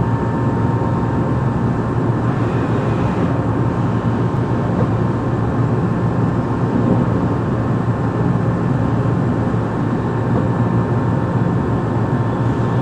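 CNC machining center running: a steady machine hum with faint constant high whine tones.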